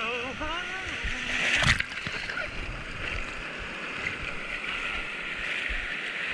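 Ocean whitewater washing around a surfboard: a steady rush of water with a sharp splash about a second and a half in.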